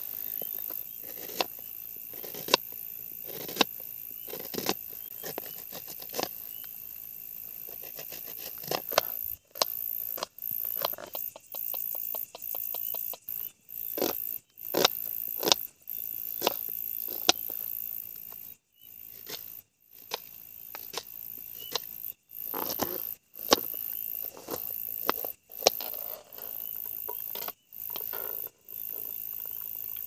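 Knife chopping onion: irregular sharp knocks, some in quick runs, over a steady high chirring of night insects.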